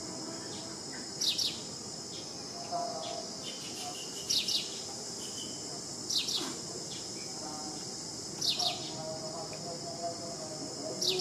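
Steady high-pitched insect chorus, with a bird giving a short call of two or three quick falling notes five times, every two to three seconds.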